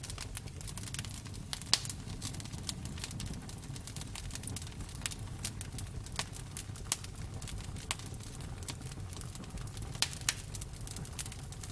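Campfire crackling: wood popping and snapping in frequent sharp clicks, a few louder pops among them, over a steady low rumble of the flames.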